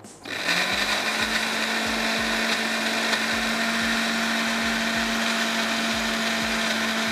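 Electric kitchen blender switched on a moment in, its motor quickly rising to speed and then running steadily, blending dates, tamarind pulp and water into a chutney.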